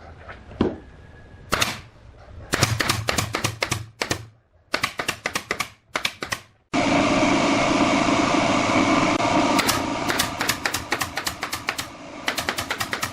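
Woodworking tools at work: runs of rapid sharp clicks, then a power tool running steadily for about five seconds, starting abruptly, with clicks over it, and rapid clicking again near the end.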